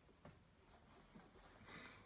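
Near silence, with a few faint soft handling noises as suede sneakers and their laces are handled.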